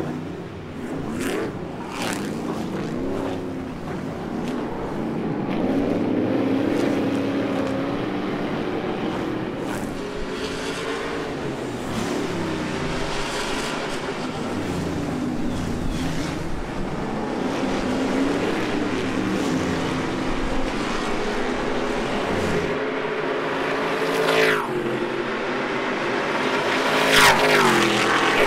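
Several Stadium Super Trucks' V8 engines racing as a pack, their pitch rising and falling again and again as the drivers rev and shift. The sound swells to its loudest as trucks pass close near the end.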